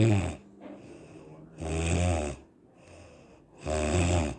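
A woman snoring: a loud snore roughly every two seconds, with quieter breathing between.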